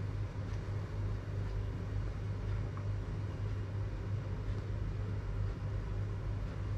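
A steady low hum with a faint hiss over it, unchanging throughout; no clear sips, swallows or glass knocks stand out.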